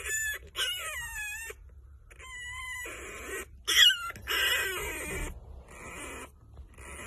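Young French bulldog puppy crying in a series of high, gliding squeals, the loudest about four seconds in.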